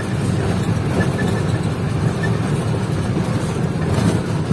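Truck engine running steadily under way, with road noise, heard from inside the cab.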